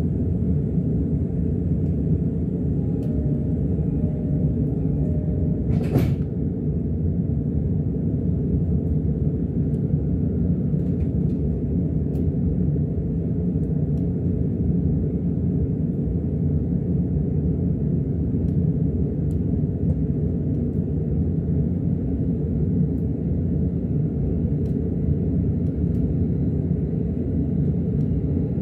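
Steady low rumble inside a commuter train carriage, with one sharp click about six seconds in.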